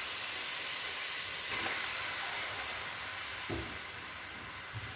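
Wet, freshly washed raw chicken pieces sizzling in a hot, dry metal pot, cooking in their own water with no oil. It is a steady hiss that slowly fades, with a couple of faint knocks.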